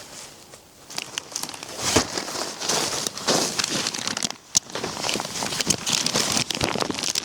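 Irregular crinkling and rustling of material being handled, starting about a second in, with short clicks and crackles mixed in.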